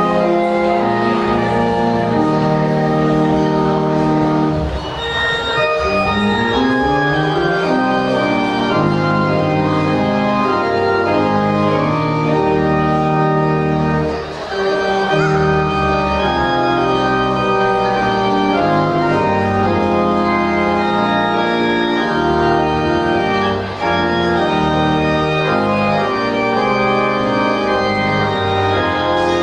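Church organ and flute playing a slow instrumental piece in held chords, with a quick rising run of notes about five seconds in and short breaks between phrases. The flute drops out for a while in the middle.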